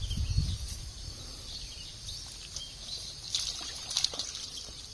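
Outdoor rural ambience: faint trickling water with a few short bird chirps over a steady high insect hiss. There is a brief low rumble at the start.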